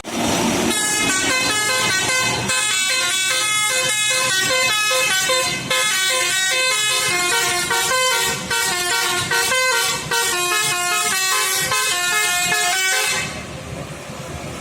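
Basuri multi-tone 'telolet' horn playing a fast tune of rapidly changing notes, which cuts off about 13 seconds in.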